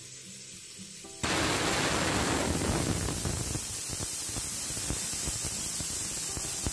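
Pressure cooker safety valve blowing: a sudden loud hiss of escaping steam bursts out about a second in and keeps going steadily, with a crackling sputter in it.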